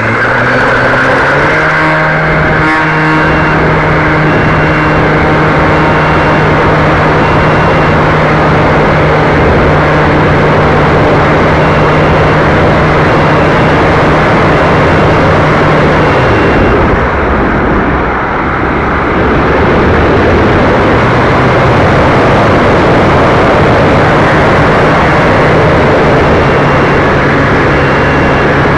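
Electric model airplane's motor and propeller running at high throttle: a steady, loud whine over a rushing noise. The motor eases off about 16 seconds in and comes back up about five seconds later.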